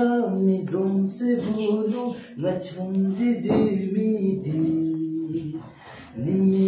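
Singing voice carrying a slow melody in long held notes, pausing briefly about six seconds in.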